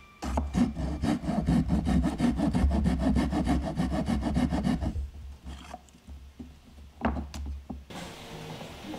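Hand saw cutting into a block of light-coloured wood in fast, even strokes. The sawing stops about five seconds in, and a couple of light knocks follow near the end.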